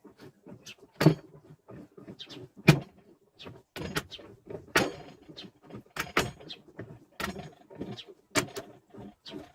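Irregular metallic knocks and clicks, a dozen or so sharp strikes with short ringing tails, as metal gearbox parts and tools are handled and fitted.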